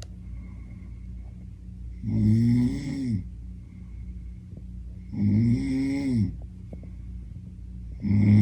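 A person snoring loudly, one long snore about every three seconds, each dropping in pitch as it ends; a third snore starts near the end.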